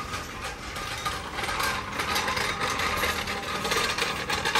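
Hand tools working on a car's wheel, with metal rubbing and ratcheting, as the car is jacked up to remove a punctured tyre. The scraping grows a little louder about a second and a half in.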